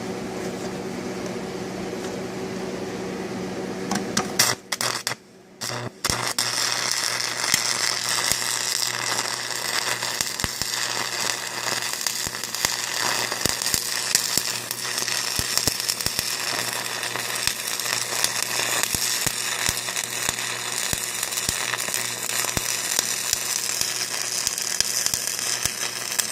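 Electric arc welding: a dense, steady crackle that starts about six seconds in, after a few short false starts, and continues. A steady low hum comes before the crackle.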